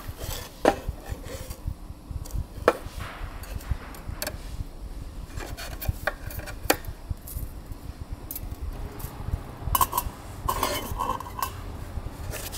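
Metal camp cookware and utensils clinking and knocking as they are handled, with scattered sharp knocks and a cluster of short ringing clinks near the end.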